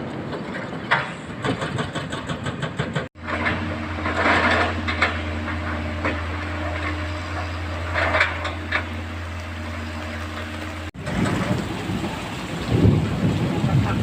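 Heavy earth-moving machinery's diesel engine running, with rain falling. The sound cuts abruptly about three seconds in and again near eleven seconds. Between the cuts is a steady low engine hum with a few short noisy bursts; before and after is a rougher, louder low rumble.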